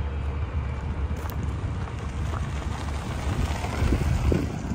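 Wind buffeting the phone's microphone, a steady low rumble.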